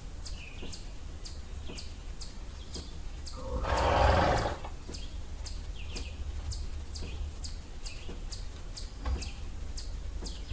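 A small bird chirping steadily, about two to three short high chirps a second. About four seconds in comes a single loud rushing burst lasting about a second.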